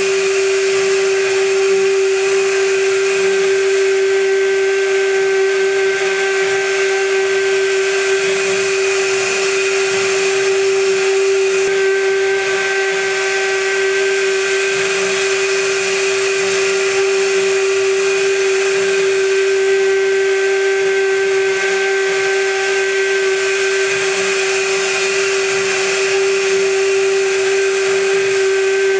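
High-frequency spindle of a CNC gantry milling machine running with a steady whine while a 6 mm cutter mills aluminium, the cutting hiss rising and falling every several seconds as the tool moves over the part.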